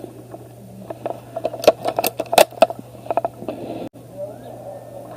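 Airsoft guns firing: sharp clicks and snaps in a few quick clusters, one run coming in rapid succession about three seconds in, over a steady low hum.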